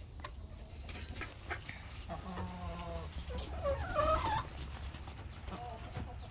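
Hens clucking in a chicken coop, with a few short, drawn-out calls, the first about two seconds in and the last near the end.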